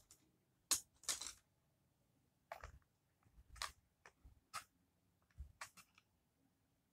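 A string of short clicks and rustles from handling food at the table: flatbread torn by hand and a plastic fork against aluminium foil trays. The loudest is a sharp click just under a second in, followed by a longer rustle.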